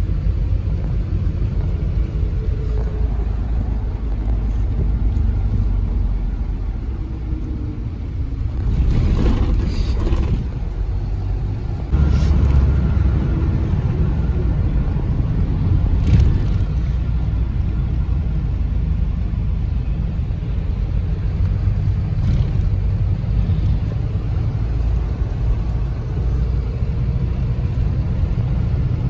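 Road noise heard from inside a moving vehicle: a steady low rumble of engine and tyres, with a few louder swells and brief knocks, the loudest starting about twelve seconds in.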